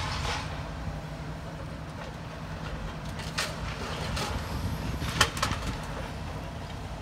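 Demolition excavator working on a brick building: its engine runs with a low steady rumble while sharp knocks and cracks of breaking masonry and debris sound a few times, the loudest a little after five seconds in.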